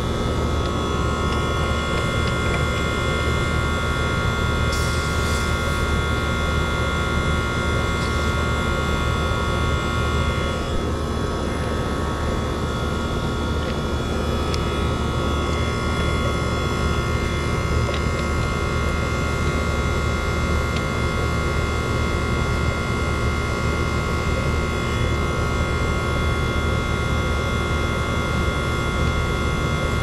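A 30-year-old Rheem 1.5-ton air conditioner condensing unit running: steady hum of the compressor under the even noise of the condenser fan blowing, with no change in pitch or level.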